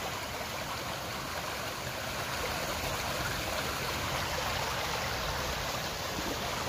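Steady rush of fast-flowing stream water churning white past a stone wall in a narrow channel.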